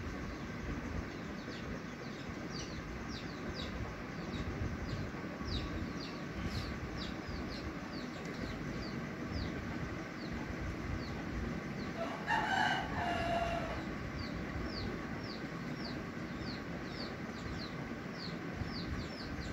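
Small birds chirping repeatedly with short high notes, and a rooster crowing once, for about a second and a half, about twelve seconds in; the crow is the loudest sound.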